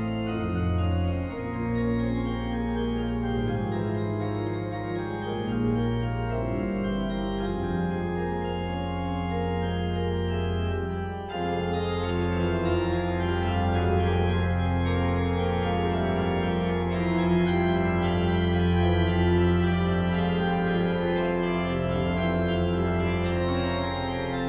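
Organ playing a passacaglia in full sustained chords over a long-held bass note that comes in about eight seconds in, the sound growing fuller a few seconds later.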